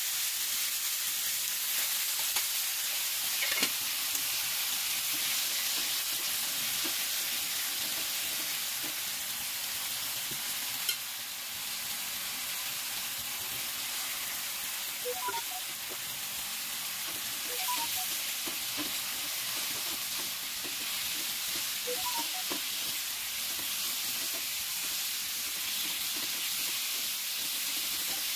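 Sliced luffa sizzling as it sautés in a small nonstick saucepan: a steady frying hiss, with a few light clicks and taps of stirring.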